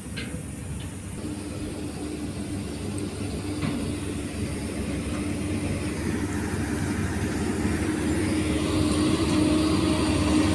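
An engine running steadily with a low hum, growing louder toward the end.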